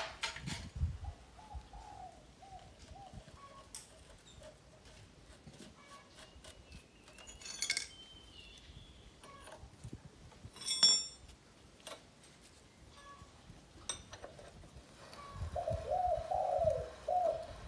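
Sharp metal clinks and knocks from a wrench and steel parts as a motorcycle's front fork and axle bolts are tightened, the loudest right at the start and again about eleven seconds in. A bird calls in runs of short repeated notes about a second in and again near the end.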